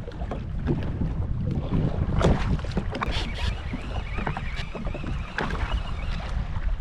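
Wind buffeting the microphone and water slopping against a jet ski on the open sea, with scattered sharp knocks and clicks from gear handled aboard.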